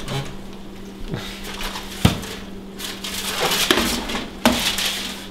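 Metal baking sheet and oven racks clanking in an open oven as the tray is handled, with a sharp clank about two seconds in and another near the end, and crinkling of aluminium foil in between.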